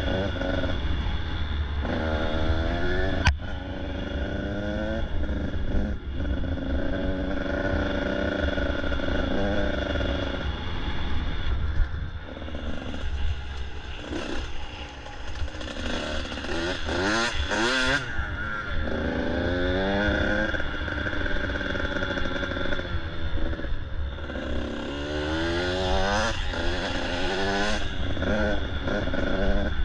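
Dirt bike engine running under the rider, its pitch climbing and dropping again and again as the throttle is worked along a rough grassy trail. A sharp click comes a little over three seconds in.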